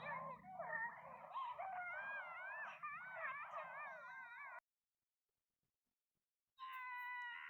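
Cartoon scream sound effects: several high-pitched, wavering wails overlap, then cut off suddenly about four and a half seconds in. After two seconds of silence, a steady high-pitched scream starts near the end.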